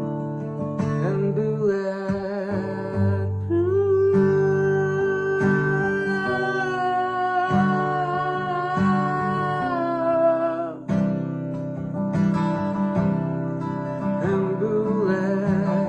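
Acoustic guitar playing chords under a wordless sung melody of long held notes with vibrato.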